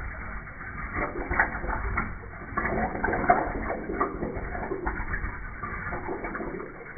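Toilet flushing in slow motion: water swirling and gurgling down the bowl in irregular surges.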